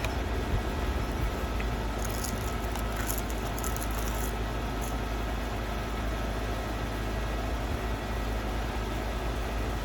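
Steady low mechanical hum throughout, with brief crisp crackles about two to four seconds in, as a crispy seaweed snack is bitten and chewed.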